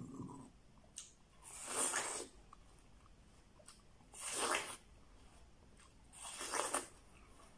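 Three juicy bites and slurps of fresh watermelon close to the microphone, each under a second, about two seconds apart.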